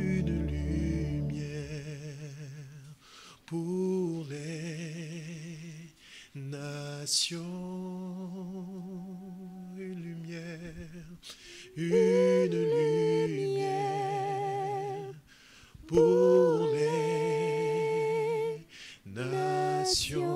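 A man's solo voice singing a slow worship song almost unaccompanied, in long held notes with vibrato and short breaks between phrases. A low sustained keyboard tone underneath stops about a second in.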